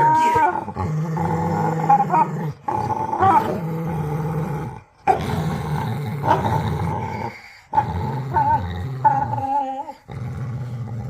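Dog growling during tug-of-war play: long, rumbling growls with a high, wavering whine-like tone riding on top, broken by short pauses for breath about every two to three seconds.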